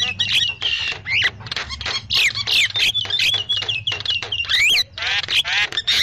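Javan mynas calling noisily: a rapid, unbroken jumble of harsh squawks, clicks and whistled notes that slide up and down. It is a lure recording played to draw wild mynas in.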